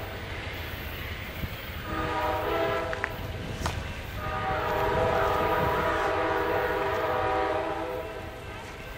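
Amtrak P42 diesel locomotive's horn sounding in the distance as the train pulls away: a short blast about two seconds in, then a longer blast held for about four seconds, over a low rumble from the receding train.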